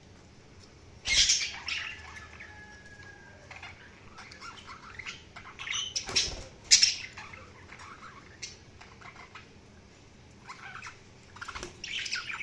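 Budgerigars chirping and squawking in short bursts, with softer warbling chatter between the louder calls. The loudest calls come about a second in, around the middle and near the end. A thin held whistle follows the first burst.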